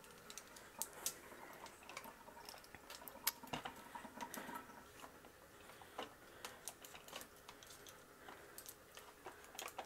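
Faint, scattered clicks and taps of makeup brush handles knocking against each other and against a plastic brush drying rack as wet brushes are slotted in one by one.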